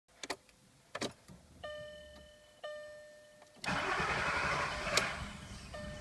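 Volkswagen VR6 that will not start: two key clicks and two chimes from the instrument cluster, then the starter cranks for about a second and a half and stops with a click without the engine catching, followed by another chime.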